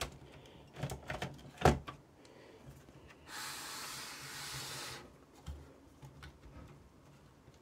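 Clicks and knocks of plastic and metal parts as a cassette deck's tape mechanism is wiggled by hand to free it from the chassis, the loudest knock about two seconds in. A rasping rub lasts about a second and a half in the middle, and a dull thump follows.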